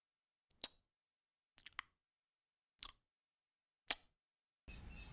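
Near silence broken by faint, sharp clicks about once a second, with a faint hiss of room noise coming in near the end.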